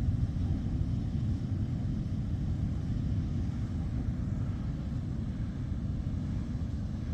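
Sea surf: a steady low rumble of waves with no single crash standing out.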